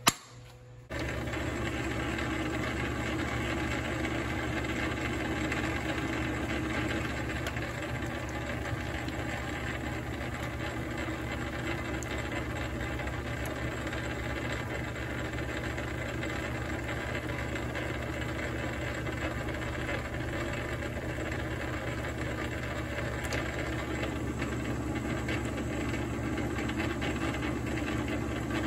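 A clunk as the lathe's metal gear cover is shut. About a second later the South Bend lathe's motor and belt drive start and run steadily, turning the chuck during single-point thread cutting on an aluminium adapter.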